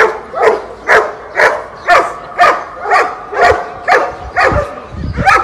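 A Ca de Bestiar (Mallorcan shepherd dog) barking over and over, about two barks a second, each bark dropping a little in pitch.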